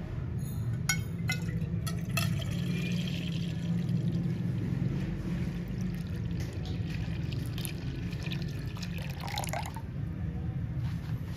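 Milk pouring in a steady stream into a metal pot and filling it, with a few sharp splashes in the first two seconds.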